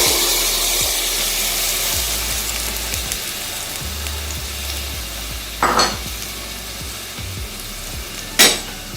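Chicken pieces frying in ghee in a hot karahi: a loud sizzle that slowly dies down, with two short stirring scrapes, one a little past the middle and one near the end.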